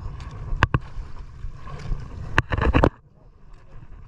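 Small fishing boat at sea: a steady rumble of water and wind against the hull, with two sharp knocks a little under a second in and a loud half-second rush of noise about two and a half seconds in.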